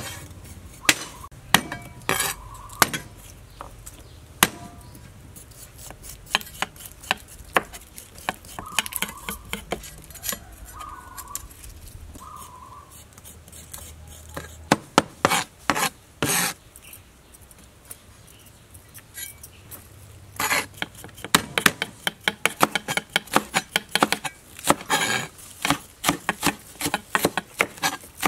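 Knife cutting on a cutting board: scattered sharp knocks at first, then, about two-thirds of the way in, a fast, even run of cleaver strokes mincing garlic and green onion on a wooden board.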